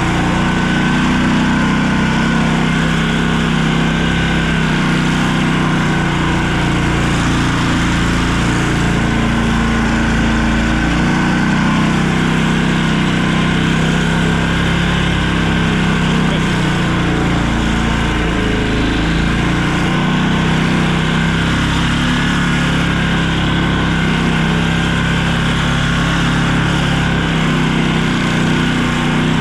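A vehicle's engine running steadily while driving, with a constant hum and road noise.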